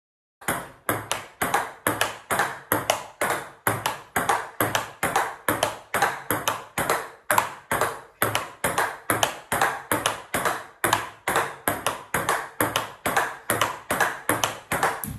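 Table tennis ball clicking off the racket and the table in a steady run of backhand drives, about three sharp clicks a second, starting about half a second in.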